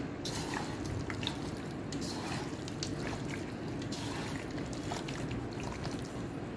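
Wet squelching and smacking as a hand kneads chunks of raw meat through a thick spice marinade in a steel bowl, in quick irregular strokes over a steady low hum.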